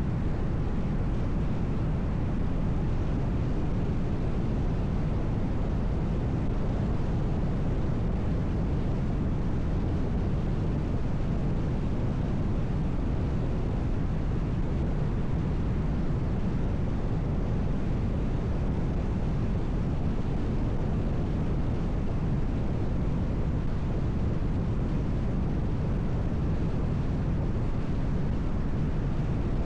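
Steady road noise of a car driving: low tyre rumble and wind, even throughout with no distinct events.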